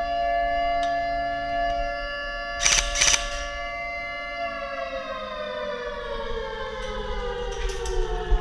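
Siren sounding a steady tone, then slowly falling in pitch as it winds down. A brief cluster of sharp cracks comes about three seconds in.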